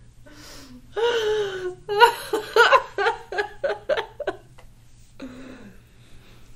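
A woman laughing: a drawn-out falling "oh" about a second in, then a quick run of short laughs that fades out after about four seconds.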